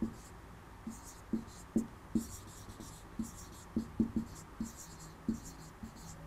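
Marker pen writing on a whiteboard: short, irregular strokes and taps of the felt tip, a few each second.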